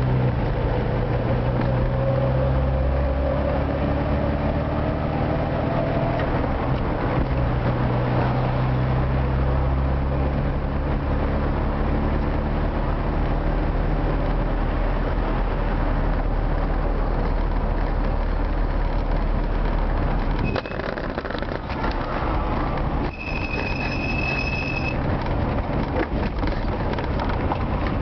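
Old Moskvich car driving at speed, heard from inside the cabin: a steady low engine drone with road noise. About twenty seconds in the lowest part of the drone drops away, and soon after a thin high steady tone sounds for about a second and a half.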